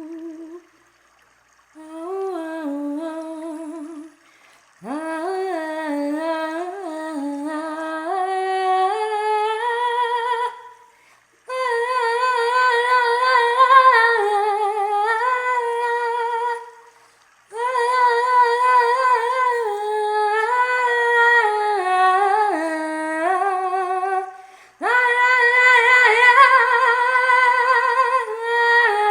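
A woman's voice humming a wordless, intuitive healing chant in long held phrases with a wavering vibrato, pausing briefly for breath between phrases about every four to six seconds. The pitch climbs over the first phrases and stays higher after that.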